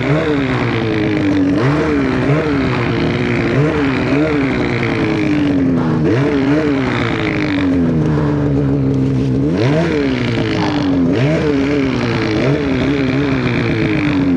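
Polaris Khaos Boost snowmobile's turbocharged two-stroke engine revving hard in deep powder, its pitch rising and falling again and again with the throttle.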